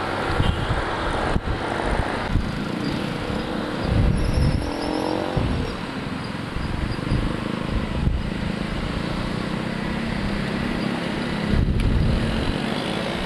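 Motorcycle engine running while riding in traffic, its pitch shifting with the throttle, under a heavy uneven rumble of wind on the microphone.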